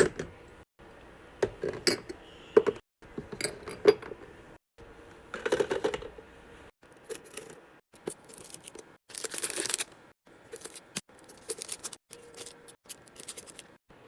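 Packaged items being handled and set down while restocking a mini fridge: a string of sharp clicks, taps and clinks, with plastic packaging rustling or tearing twice, about five seconds in and again about nine seconds in.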